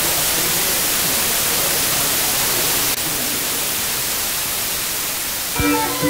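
Steady, loud white-noise hiss, brightest in the high end, dropping slightly in level about halfway through. Near the end, music with held notes cuts in abruptly over it.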